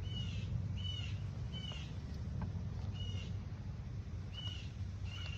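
A bird calling: six short, high calls at irregular gaps of about a second, over a steady low rumble.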